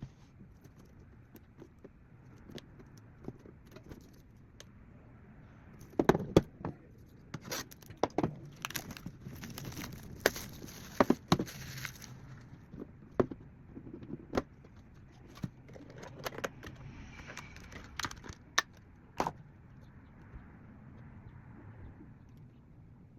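Pokémon trading-card packs being handled and opened: foil wrappers crinkling and tearing, with sharp clicks and taps. It starts about a quarter of the way in and is busiest in the middle.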